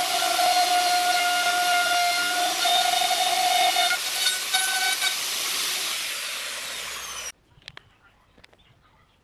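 Handheld electric router running at full speed, its bit cutting pockets into a pine board: a steady high whine over a hiss of cutting, wavering slightly as the bit bites. It cuts off suddenly about seven seconds in, leaving near silence with a few faint ticks.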